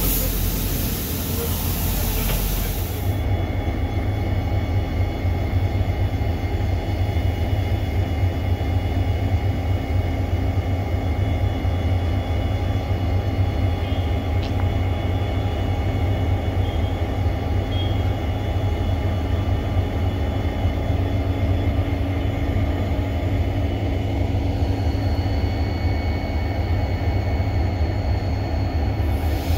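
EMD diesel-electric locomotive idling: a steady, loud low rumble with constant whining tones above it. A brief rush of hiss plays in the first few seconds.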